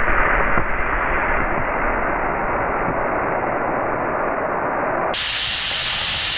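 Steam jetting out of a homemade coal-fired boiler, built from a gas bottle, through its opened valve: a loud, steady hiss as the boiler vents its pressure.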